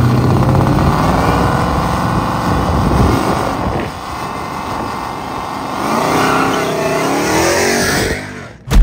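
Whipple-supercharged 6.2-litre V8 of a 1200 hp Ram TRX running, then rising in pitch as the truck accelerates away about six seconds in, fading as it drives off.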